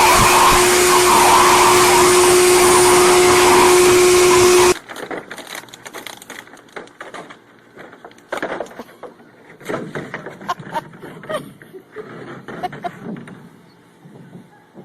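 Electric blow-dryer running steadily with a held hum, cutting off abruptly about a third of the way in. After that come quieter scattered knocks and short pitched sounds.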